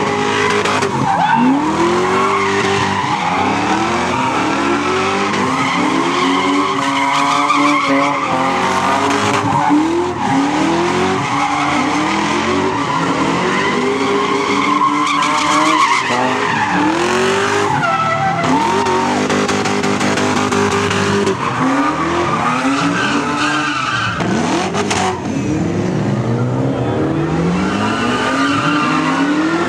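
Cars doing donuts and drifting: engines revving up and down over and over, every second or two, with tyres squealing continuously under wheelspin.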